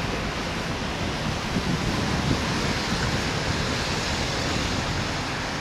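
A river in flood after heavy rain, the swollen water rushing with a steady, even noise. Wind buffets the microphone, giving a flickering low rumble.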